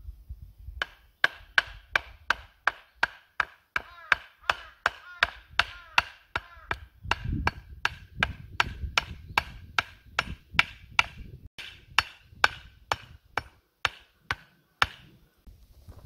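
Wooden stake being pounded upright into the ground: a long run of steady, sharp blows, about two or three a second, each with a brief ringing note. The blows stop about a second before the end.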